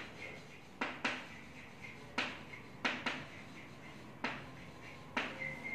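Chalk writing on a blackboard: about seven sharp, unevenly spaced taps as the chalk strikes the board, each trailing off into a short scratch.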